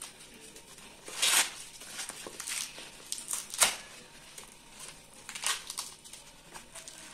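Green husk leaves being peeled and torn off an ear of sweet corn by hand: several separate rustling, tearing rips, the sharpest and loudest about halfway through.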